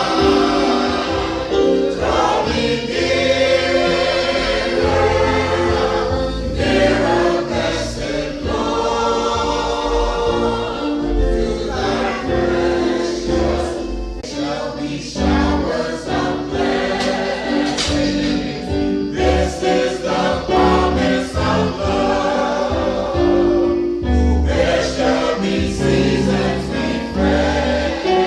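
A choir singing a gospel song, with sustained notes over a low bass line.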